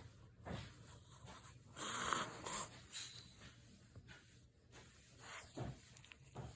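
Shih tzu puppy sneezing again and again, a string of short noisy sneezes, the loudest and longest about two seconds in.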